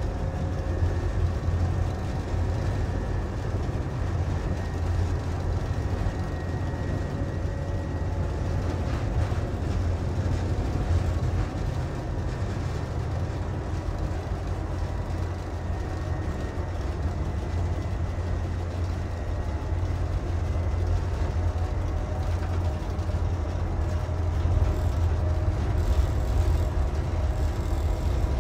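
MÁV M41 diesel-hydraulic locomotive running along the line, heard from inside its driver's cab: a steady low engine rumble mixed with the noise of wheels on rail, holding even throughout.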